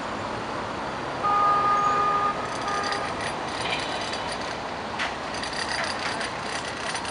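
Traffic noise with a vehicle horn sounding for about a second, starting about a second in, then a short second toot. A brief sharp clatter comes about five seconds in.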